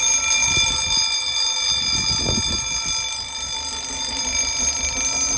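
Level crossing warning bells, a pair of electric gong bells, ringing continuously at a steady pitch, warning that a train movement is approaching.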